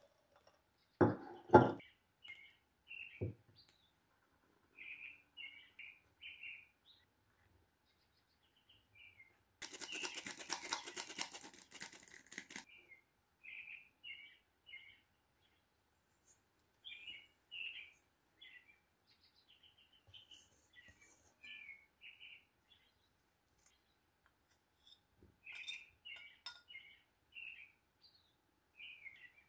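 Small songbirds chirping in short repeated phrases throughout. About a second in come two sharp knocks, the loudest sounds. About ten seconds in there is a three-second stretch of rapid scratchy rattling from a wire whisk stirring flour in a glass bowl.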